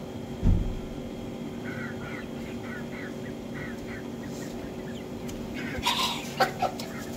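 Hens clucking: a run of short, quick clucks, then a louder squawk near the end. A low thump sounds about half a second in.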